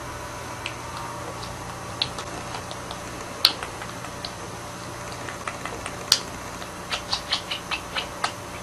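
A budgerigar chattering in scattered short, high clicks and chirps, with two sharper clicks standing out. Near the end comes a quick run of about eight chirps.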